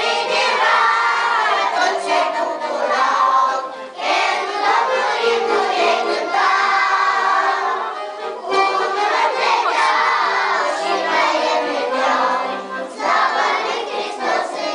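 A group of young children singing a song together, the sung phrases breaking off briefly about every four to five seconds.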